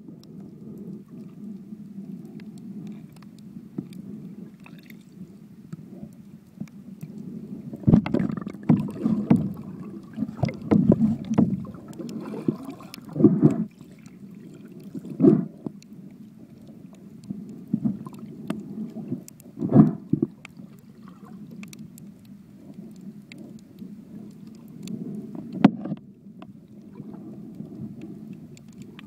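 Muffled underwater rumble picked up by an iPhone sealed in a waterproof case, with a run of knocks and bumps about a third of the way in and a few single thumps later.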